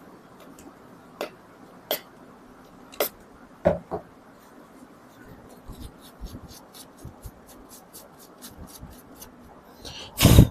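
Tissue paper being rubbed over a laptop's processor and cooler to wipe off old thermal paste. A few light clicks and taps come first, then a fast run of faint scratchy ticks, about five a second, and a single loud knock near the end.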